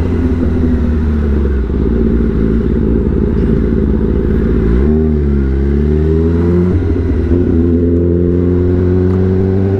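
Kawasaki ZX-10RR's inline-four with an SC Project titanium exhaust, running steadily. About five seconds in, a short blip of revs rises and falls before the engine settles again. The revs climb slowly near the end.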